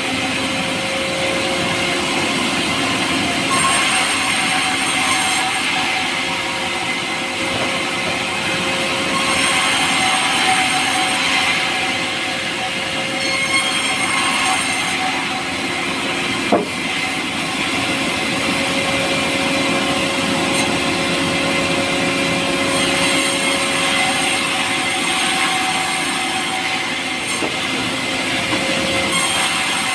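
Power saw running steadily as it cuts through soft, light pulai wood, its high-pitched cutting noise rising and easing every few seconds. A single sharp click comes about halfway through.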